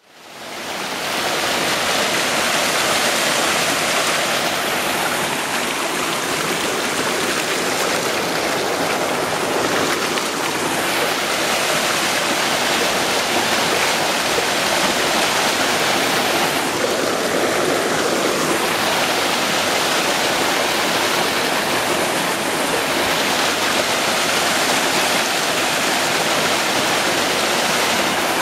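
Steady rushing of a mountain creek running over rocks, fading in over the first two seconds.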